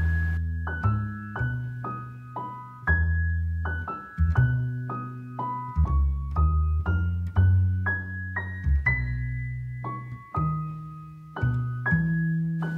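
Background music: a gentle piano tune, notes struck about twice a second, each ringing and fading, over low bass notes.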